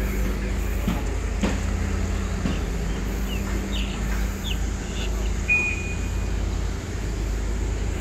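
Steady low rumble of street background noise, with a few short high chirps and a brief high beep about five and a half seconds in.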